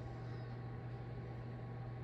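Steady low hum with a faint even hiss, unchanging throughout: indoor room tone.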